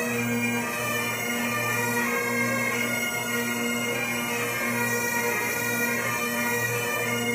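A band of Great Highland bagpipes playing together, the chanter melody moving from note to note over the steady drones.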